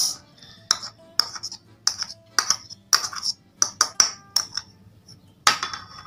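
Metal spoon clinking and scraping against a small bowl and a ceramic mug while spooning out thick pasta sauce: a string of about a dozen short, sharp taps, some ringing briefly.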